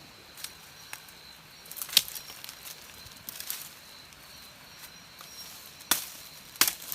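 Sharp chopping strikes into a dead, rotten tree being cut for firewood: three loud blows, about two seconds in and twice near the end, with lighter knocks between.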